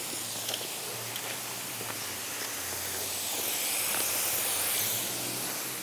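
Steady outdoor background hiss with a low hum underneath, swelling slightly in the middle.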